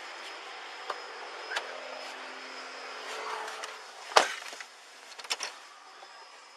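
A car door shutting with a sharp thump about four seconds in, after which the steady outdoor hiss drops away. Rustling and a few light clicks come before it, and a quick cluster of clicks follows about a second later.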